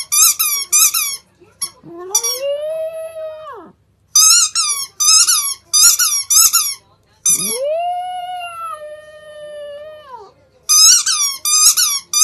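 Squeaky pink rubber ball chewed by a Shiba Inu: volleys of short, sharp squeaks about three a second, broken twice by a long drawn-out squeal that rises and then holds steady for about two seconds before it falls away.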